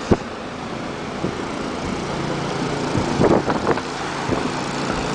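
A car driving along a road, heard from inside the cabin: steady engine and tyre noise, with one sharp knock just after the start.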